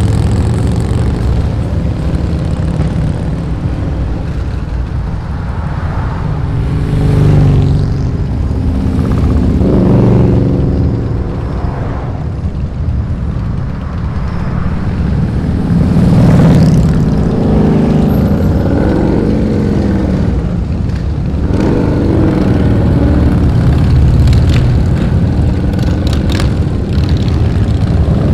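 Heavy motorcycle traffic: many motorcycle engines running in a steady low drone, with single bikes revving or passing by several times, their pitch rising and falling. The loudest passes come about a quarter of the way in, and again a little past halfway.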